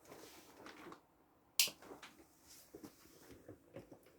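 Quiet handling sounds: a few faint knocks and one sharp click about a second and a half in.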